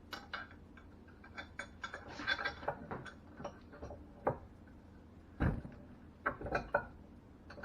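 Scattered light clicks and taps at an uneven pace, the sound of small metal parts and hand tools being handled.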